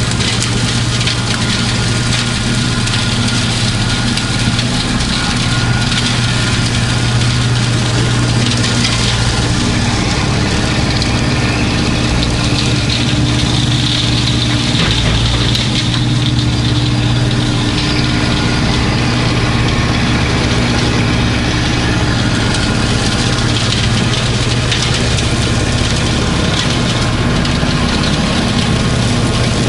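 Kubota B2650 compact tractor's three-cylinder diesel engine running steadily at a constant speed, with no change in pitch.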